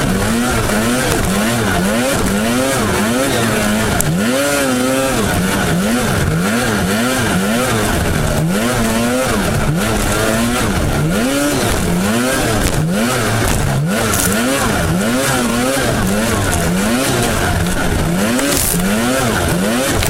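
Snowmobile engine heard up close from the sled, its pitch rising and falling over and over, about once a second, as the throttle is worked on and off. A steady rushing hiss runs under it.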